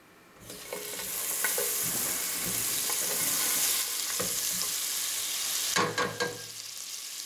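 Butter sizzling as it hits a hot non-stick saucepan about half a second in, then melting as a silicone spatula pushes it around with a few light knocks against the pan. The sizzle eases somewhat near the end.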